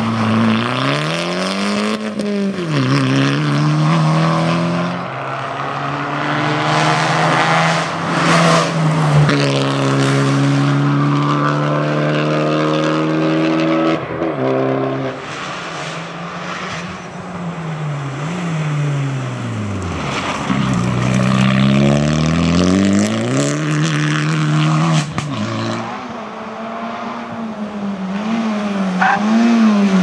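Rally cars racing past one after another at full throttle. The engines rev up and down through quick gear changes and lift-offs, and the pitch climbs as each car approaches and falls away as it passes.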